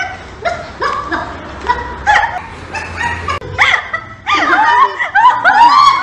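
A large dog barking repeatedly, with people laughing; the calls get louder in the second half.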